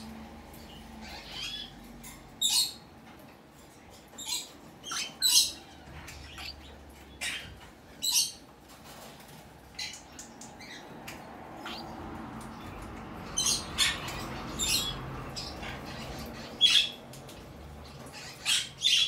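Lutino cockatiel chick giving short, high calls every second or two, with a quicker run about two-thirds of the way through.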